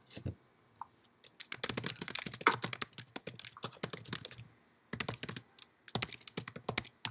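Typing on a computer keyboard: quick runs of keystrokes starting about a second in, broken by short pauses, as a chat message is typed.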